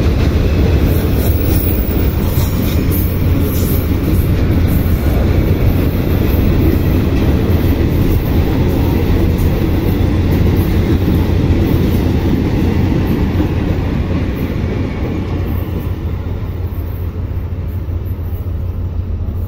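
Container freight train's flat wagons rolling past close by on the adjacent track, a loud steady rumble of wheels on rail. The noise eases toward the end as the last wagons pass and the train draws away.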